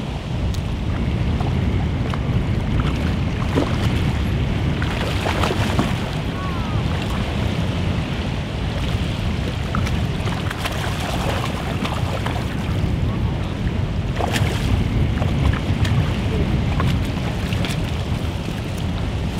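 Wind buffeting the microphone over small waves lapping on a stony shore, a steady rumble, with a few brief sharp noises.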